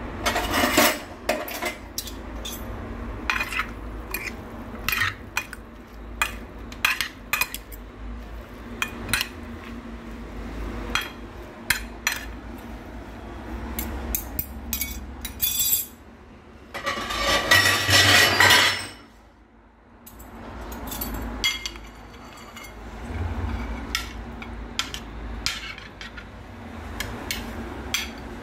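A metal fork tossing chopped salad on a plate, clinking and scraping against it over and over. A louder, rougher stretch of scraping lasts about two seconds, about two-thirds of the way through.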